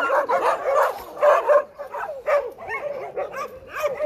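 A pack of dogs barking, yipping and whining over one another in a dense, unbroken chorus of short calls.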